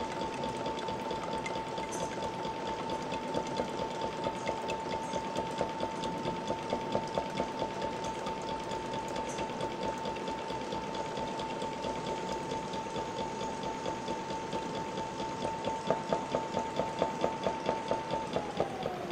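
Small electric pump motor of a liquid dispensing system running with a steady high whine and a rhythmic pulsing, as liquid pours into a plastic measuring beaker. Near the end the whine falls in pitch as the pump winds down at the end of the 500 ml dose.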